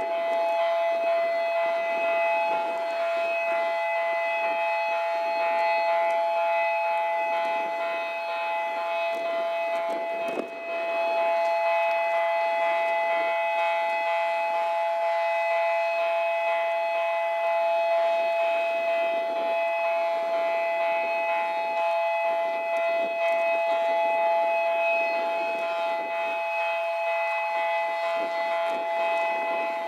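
The movable bridge's warning siren sounds as one steady tone of several pitches that does not rise or fall, broken only by a brief dip about ten seconds in, while the bascule span lowers. Gusting wind rumbles on the microphone underneath.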